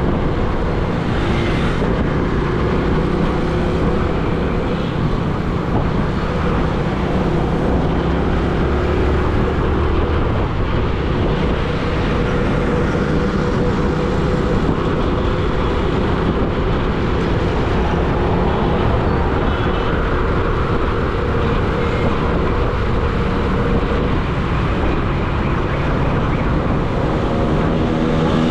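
Road traffic: vehicle engines running over a steady, even noise, with no pauses or sudden events.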